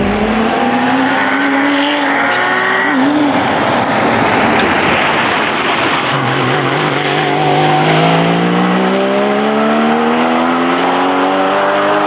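2016 Porsche Cayman GT4's 3.8-litre flat-six running hard under acceleration. The engine note climbs in pitch, wobbles briefly about three seconds in, then climbs again in one long rise from about six seconds in.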